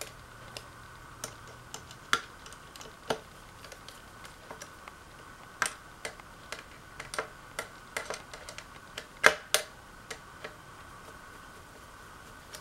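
Irregular clicks and light knocks of a screwdriver tightening the screws that fix a ceiling fan blade to its blade arm, the loudest knock about nine seconds in.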